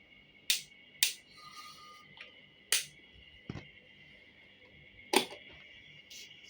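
Panasonic table fan running with a faint, steady high whine, over five sharp mechanical clicks spread irregularly through a few seconds, the loudest near the end.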